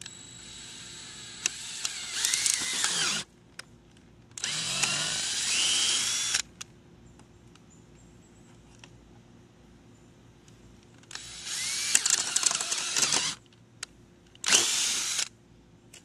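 Power drill running in four separate bursts, the first starting softly and building, the last short, its pitch gliding up and down as a twist bit bores holes through a plastic milk crate.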